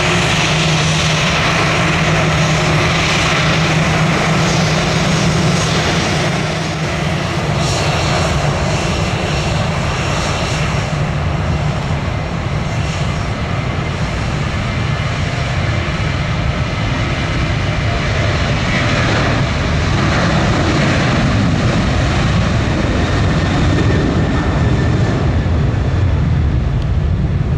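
Airliner engines running close by, a loud, steady engine noise with a low hum in the first third; the high hiss fades over the second half while the low rumble stays.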